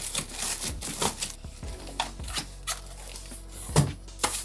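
Plastic bag wrapping rustling and crinkling in irregular crackles as a bagged monitor stand base is handled and unwrapped, with a louder knock near the end. Faint background music underneath.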